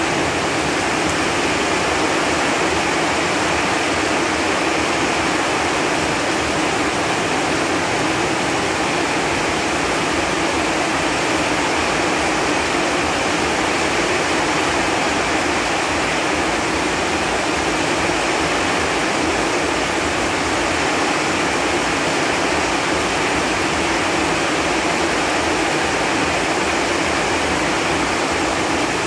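Steady, heavy rain falling on leaves and foliage, a dense even patter with no let-up.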